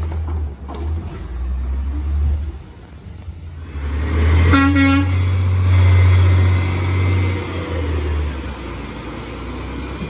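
Autocar ACX garbage truck's natural-gas engine running as the truck drives close past, swelling as it goes by and fading after. About four and a half seconds in, its horn gives one short toot.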